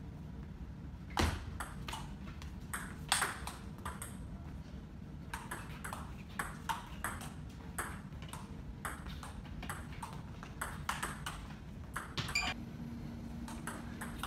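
Table tennis rally: the ball clicking off the table and the paddles in quick, uneven succession, with a short lull before play picks up again. A couple of hits early on are harder and louder than the rest.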